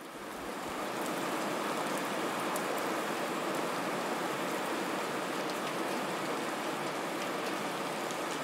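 Steady rain falling: an even hiss with scattered faint drop ticks, swelling in over the first second and then holding level.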